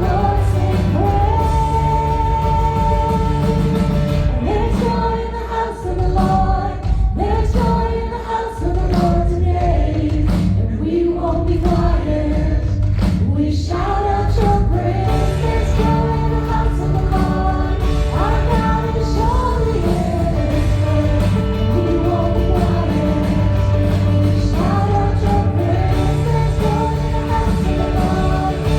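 Christian worship song: voices singing a melody over a full band with a steady beat.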